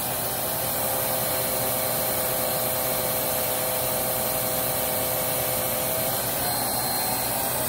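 Riccar R25 upright vacuum running on one suction motor with its brush roll switched to high speed: a steady rush of air with a steady whine from the brush roll motor, which weakens near the end.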